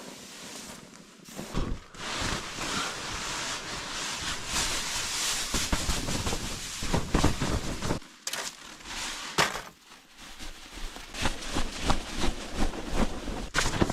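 Tent fabric rustling and snapping under falling snow and wind, with a steady hiss at first, then a string of sharp irregular snaps and taps from about halfway through.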